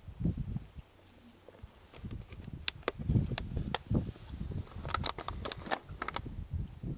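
Wind buffeting the camera microphone in irregular low gusts. A quick run of sharp clicks and ticks comes through the middle, loudest about three and five seconds in.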